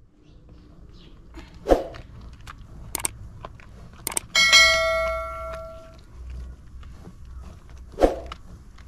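Pomegranate seeds squelching as they are crushed by hand in a metal bowl, with two thuds. About four seconds in comes a subscribe-button sound effect: mouse clicks, then a bright bell ding that rings on for a second or two.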